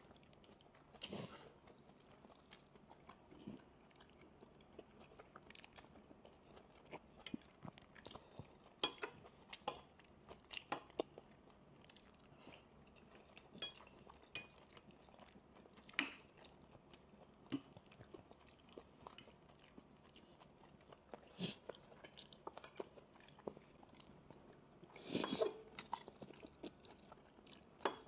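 Quiet eating sounds of people chewing fried noodles, with scattered soft clicks and a louder cluster of them near the end.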